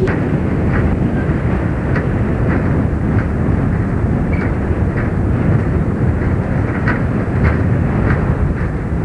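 Canadian Pacific hi-rail truck travelling along the railway track: a steady running rumble with light clicks about twice a second.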